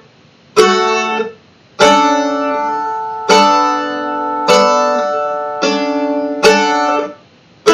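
A-style mandolin in open D tuning, strummed one chord at a time: about six single strums roughly a second apart, changing chord between strums. The first two are stopped short, the later ones are left ringing into the next.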